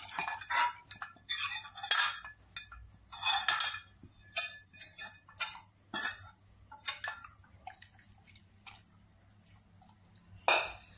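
A steel ladle scraping thick masala tadka out of a pan into a pressure cooker of chickpeas in water, with wet splashing and scraping for the first few seconds. Then the ladle clinks against the metal pan and cooker as the mix is stirred, with one sharp clink near the end.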